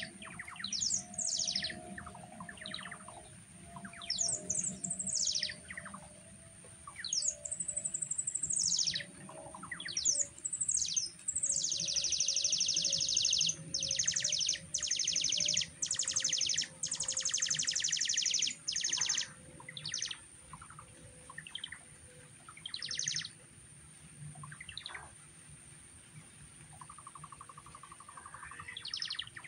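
Electronic noise-making instrument producing bird-like chirps: repeated swoops that rise and fall in pitch, then a run of fast buzzing trills in the middle. Near the end it steps between held tones.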